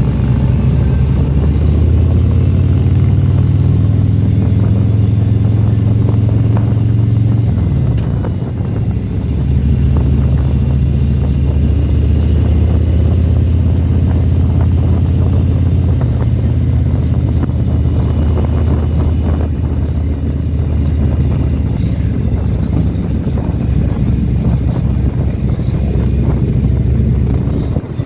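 Motorcycle engine running under way on a winding road. The engine note eases off briefly about eight seconds in, then pulls steadily again.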